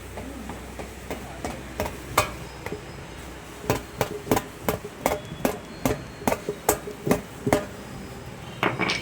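Hammer blows during tubeless tyre puncture repair: a few light taps, then a steady run of about a dozen sharp strikes at a little over two a second, and two more near the end.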